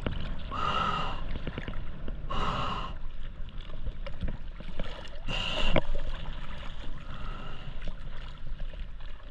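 A spearfisher's heavy breathing at the water surface: three loud breaths about two seconds apart and a fainter one near the end, over water sloshing around the camera.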